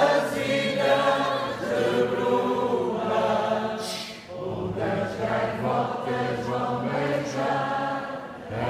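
A large group of voices singing together as a choir, in sustained phrases with a short break about halfway through.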